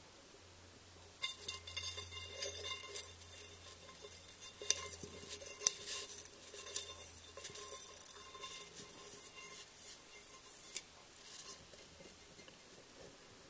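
Female dobsonfly scrabbling and beating its wings inside a glass container: a busy run of light taps, clicks and rattles against the glass that starts about a second in and stops near the end.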